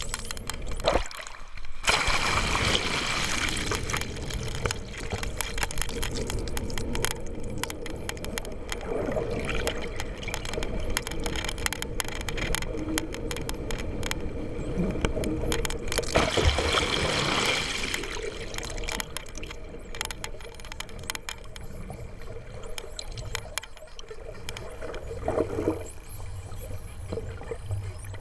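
Water rushing and gurgling around an underwater camera as the swimmer is towed behind a boat, louder in surges, with a faint steady hum underneath and scattered crackling clicks.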